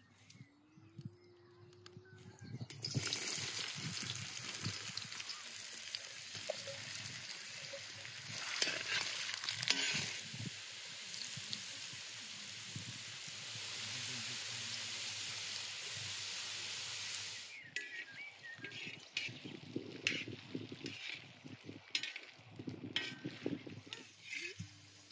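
Diced potatoes frying in hot oil in a wide metal pan: a loud, steady sizzle starts suddenly about three seconds in and stops sharply after about seventeen seconds. Then quieter frying with the clicks and scrapes of a metal spatula stirring them against the pan.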